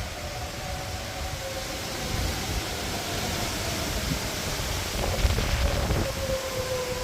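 Tornado warning sirens wailing, the tone sliding slowly down in pitch, over a steady hiss of wind and rain. A louder low rumble comes about five seconds in.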